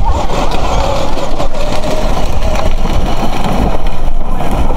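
A loud, uneven low rumble, typical of wind buffeting the microphone.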